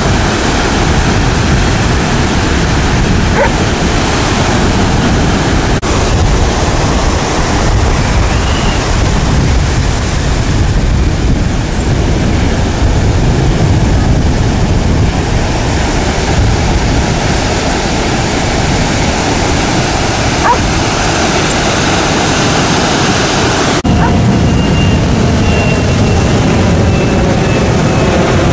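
Steady, loud rush of ocean surf, with a few brief dog yips and whines from Brittany spaniels heard faintly over it.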